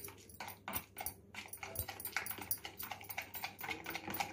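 Fingers squishing mayonnaise and chilli garlic sauce together in a plastic bowl: a run of quick, irregular wet squelches and clicks.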